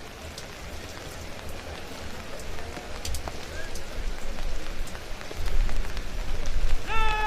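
Steady rain falling, growing slowly louder, with a low rumble building over the last couple of seconds. Near the end a band strikes up with a held, steady musical note.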